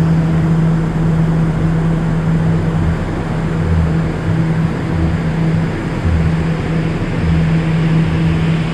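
The HVAC unit of an R179 New York City Subway car running: a steady hum over a constant rush of air, with some uneven low rumble underneath.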